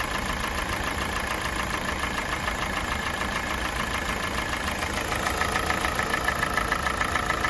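Kia Sportage's G4NA 2.0-litre four-cylinder petrol engine idling while warming up, with an even, rapid metallic knock. The knock grows as the engine warms and does not sound like a piston knock; the owner suspects the cam phasers or the valves. A thin steady whine drops slightly in pitch about five seconds in.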